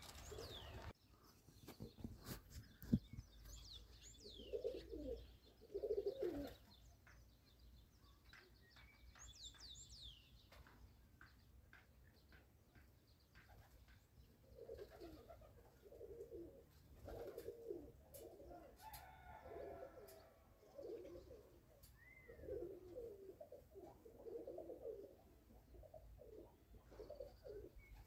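Faint cooing of pigeons, repeated low phrases in a short bout about five seconds in and then steadily through the second half. Quick high chirps from small birds come now and then, with a few light clicks.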